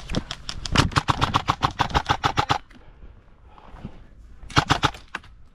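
Airsoft electric rifle (AEG) firing full-auto: a long burst of rapid, even shots of about two and a half seconds, then a short burst near the end.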